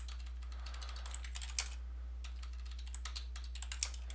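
Typing on a computer keyboard: two short runs of irregular key clicks, the loudest near the end, over a steady low hum.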